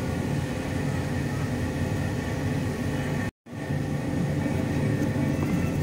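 Steady mechanical hum and rush of background kitchen machinery, with no distinct event; it cuts out for a moment about three seconds in.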